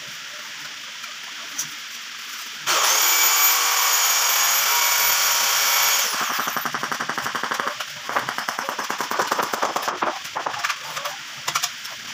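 A handheld electric power tool starts about 2.7 s in, runs at full speed for about three seconds, then is switched off and winds down. After that comes a fast run of sharp taps.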